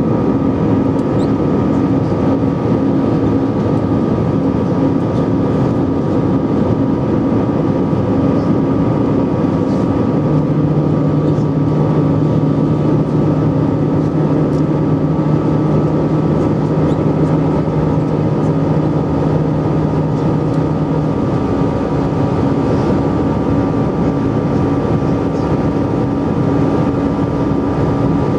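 Cabin noise of an Airbus A320-214 climbing out after take-off: the CFM56 turbofans and the airflow give a loud, steady roar with a constant hum and a higher drone. About ten seconds in, an extra low hum joins and runs for about eleven seconds before stopping.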